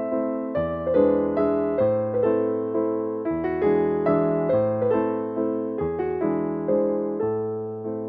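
Piano music: gentle broken chords struck over and over, the chord changing about once a second.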